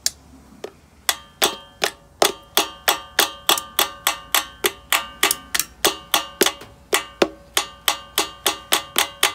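Honda GCV190 carburetor being tapped to work its jet loose: quick, evenly spaced metallic taps, about three a second, starting about a second in, each with a brief ring.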